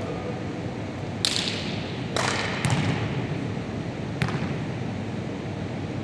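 A basketball bouncing and striking in a hall with a wooden court: four sharp impacts that echo, the first about a second in. Under them is a steady background noise.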